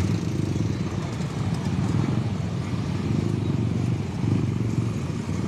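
Many motorcycle engines idling together in a tightly packed crowd of waiting riders, a steady low rumble.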